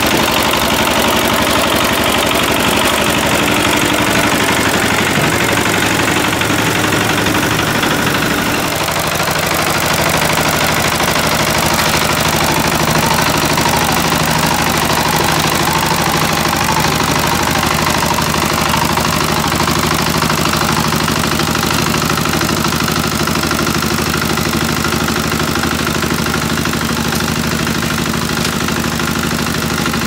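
Two-wheel hand tractor's single-cylinder diesel engine running steadily as it pulls a trailer, its note shifting about nine seconds in.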